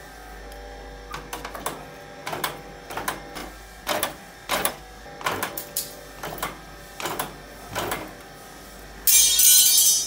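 Resistance spot welder firing a series of quick welds around a skimmer spoon's strainer rim: about a dozen short, sharp snaps, some in quick pairs, over seven seconds. A loud hiss about nine seconds in lasts roughly a second.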